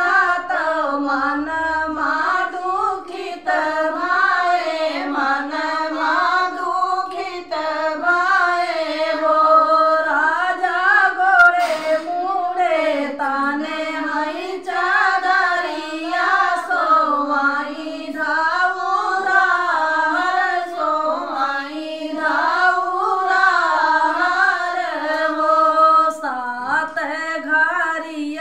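A group of women singing a sohar, a traditional folk song for a child's birth, in unison without instruments. The melody wavers and turns continuously with no breaks.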